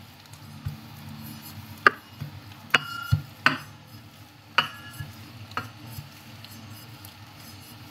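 Stainless-steel rolling pin rolling out dough, with about half a dozen short clicks and knocks, some with a brief metallic ring, over a faint steady low hum.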